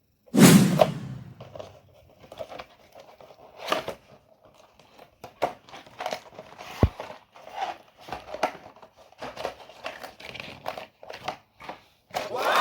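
Crinkling of plastic packaging and small clicks and knocks of Lego pieces being handled, with a loud crinkle about half a second in and a sharp click near the middle.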